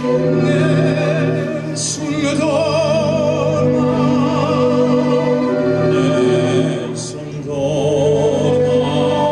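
Soundtrack music: an operatic voice singing with wide vibrato over sustained classical accompaniment.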